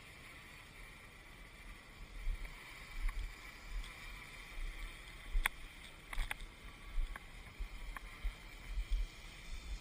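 Small quadcopter's brushless motors and propellers hovering with a steady faint whine. Wind buffets the microphone in gusts from about two seconds in, and there are a few sharp clicks around the middle.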